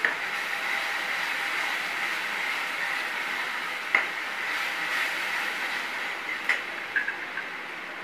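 Ground spice paste sizzling as it fries in oil in a stainless steel pan, with a steel ladle clinking against the pan a few times as it is stirred.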